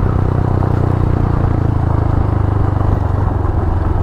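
Honda Grom's 125 cc single-cylinder four-stroke engine running at a steady cruising speed while riding, heard from a microphone inside the rider's helmet.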